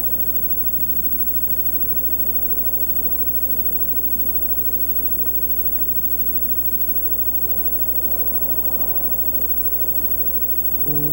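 Steady rumbling noise over a constant low hum, with no distinct events. Just before the end, a sustained low pitched tone with overtones begins.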